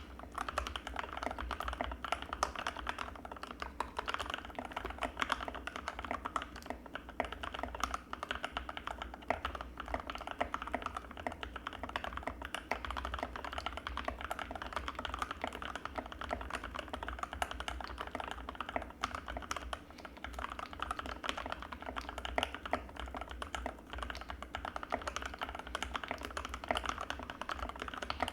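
Anne Pro 2 60% mechanical keyboard with Gateron Red linear switches being typed on quickly and without stopping: a dense stream of creamy key clacks with a few brief pauses.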